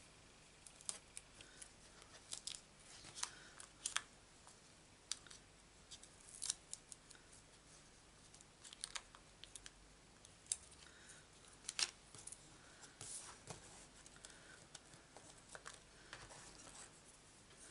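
Faint, irregular clicks and short scratchy rustles of paper handling: foam dimensionals being peeled from their sheet and pressed onto a card-stock circle.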